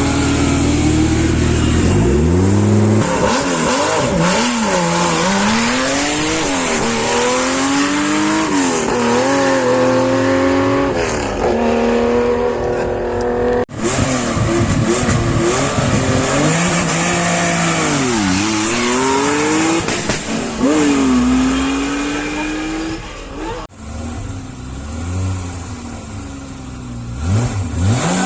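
Air-cooled flat-six engines of historic Porsche 911 rally cars being driven hard, the pitch climbing under acceleration and dropping on lift-off and gear changes, over and over. The sound cuts abruptly twice between separate cars.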